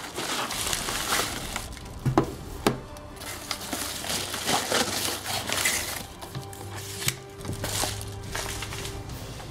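Paper bubble envelope rustling and crinkling as hands open it and pull out its contents, with two sharp knocks about two seconds in, over background music.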